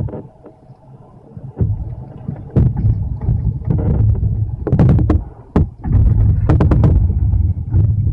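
Typhoon storm noise: gusty wind buffeting the microphone in heavy rain, a loud, uneven low rumble that swells and drops, with scattered sharp knocks.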